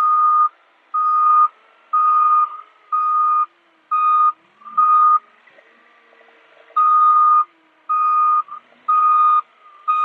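Skid steer's backup alarm beeping about once a second while the machine reverses, with a pause of nearly two seconds midway.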